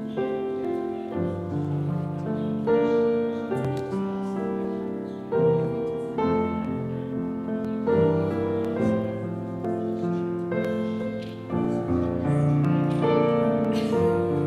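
Slow piano music, with held notes and chords changing every second or two.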